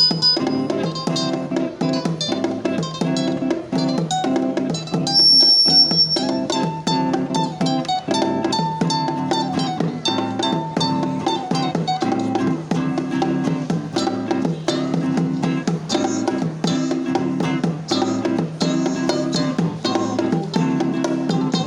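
Acoustic guitar music: an instrumental improvisation played as a fast, unbroken stream of plucked and strummed notes.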